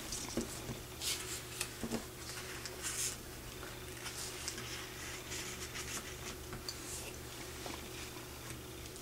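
Paper cut-outs rustling as they are handled and laid onto tinsel-trimmed wreaths, in short scattered bursts, over a steady low hum.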